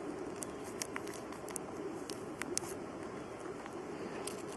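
Scattered small clicks and light rustling over a steady low background rumble.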